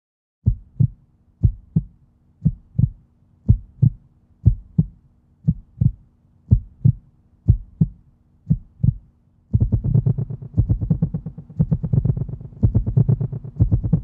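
Heartbeat sound effect: nine slow double thumps about a second apart over a steady low hum. About nine and a half seconds in, it turns into a faster, louder, continuous pounding.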